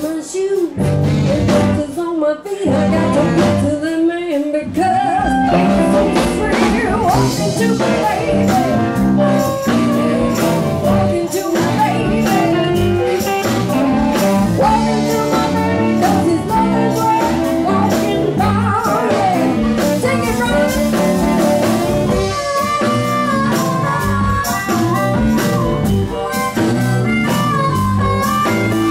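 Live blues band playing: a woman singing lead over electric guitar, bass and drums. The band drops out briefly a few times in the first five seconds.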